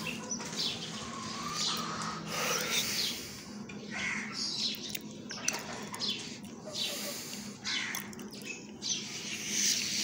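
Desi hens making short calls and clucks, one after another about every second, while they feed.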